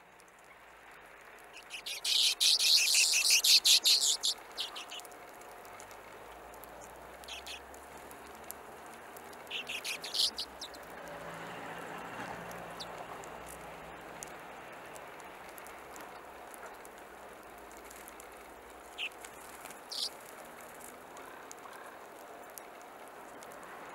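Hornemann's Arctic Redpolls calling: a loud, rapid chattering run of calls starting about two seconds in and lasting a couple of seconds, a shorter burst around the middle, and a few single calls later on.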